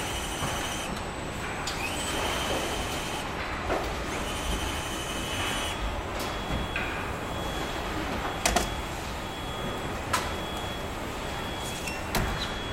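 Car assembly line noise: a steady machinery hum with several high-pitched whines, each lasting a second or so, and a few sharp metallic clicks in the second half.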